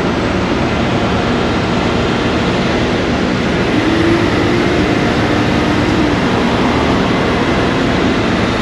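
Heavy 50-ton rotator wrecker running at close range: a steady diesel rumble and hiss. A hum comes in for about two seconds near the middle as the boom's hook blocks are lifted.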